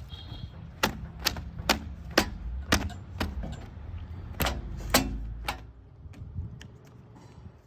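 Low engine rumble with a run of sharp metallic clanks or knocks, roughly two a second, that thin out and fade near the end.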